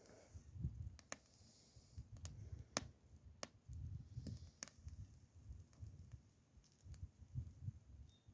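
Campfire crackling: a few scattered sharp pops over an irregular low rumble.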